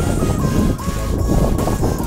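Background music with a steady beat and a simple stepping melody, over a continuous low rumble.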